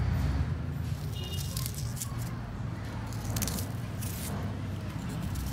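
Small knife slicing through a hand-held onion, a few short crisp cuts, over a steady low hum.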